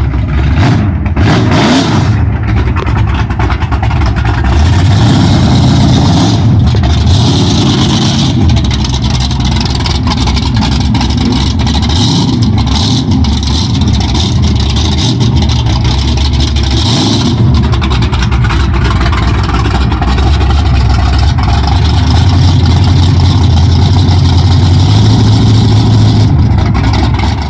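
Ford Gran Torino drag car's 460 big-block V8 with open headers running loud, its engine speed rising and falling several times, with a few quick blips in the first couple of seconds.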